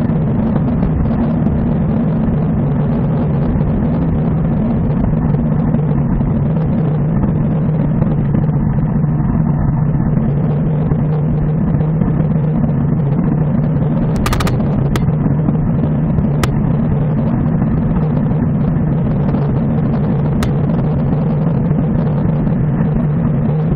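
Steady wind and road rumble on a bicycle-mounted camera riding at about 40 km/h, with a few sharp clicks in the second half.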